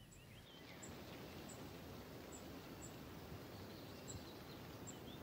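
Faint outdoor forest ambience: scattered short bird chirps and brief high ticks over a low steady hiss.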